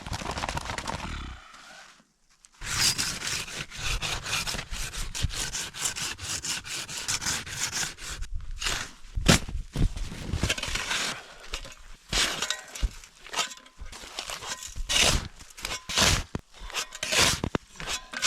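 Collapsible snow shovel digging into packed snow, with repeated irregular crunching and scraping strokes. The strokes start after a brief silence about two seconds in.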